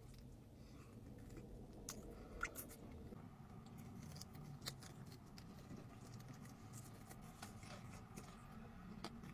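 Faint close-up eating sounds: soft chewing with scattered small crisp clicks and snips.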